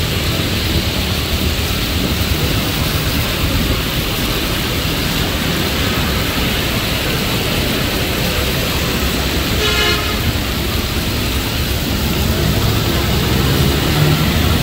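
Heavy rain pouring steadily while traffic passes on the flooded road, tyres hissing through water and engines running. A short vehicle horn toot sounds about ten seconds in.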